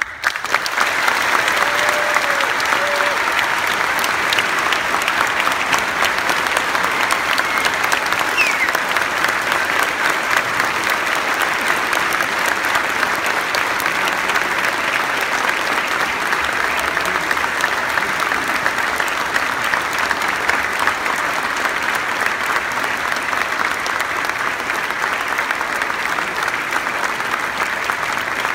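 A large audience clapping steadily and continuously, starting abruptly: a standing ovation.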